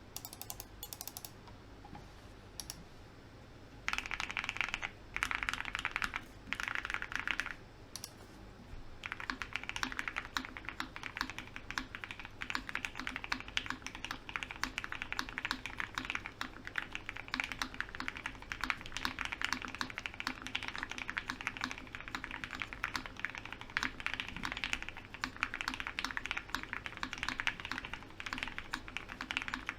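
Typing on a Vega mechanical keyboard with lubed, filmed Gateron Black Ink V1 linear switches on a full polycarbonate plate. A few scattered keystrokes come first, then three short fast bursts of keystrokes about four to seven seconds in, then steady continuous typing from about nine seconds on.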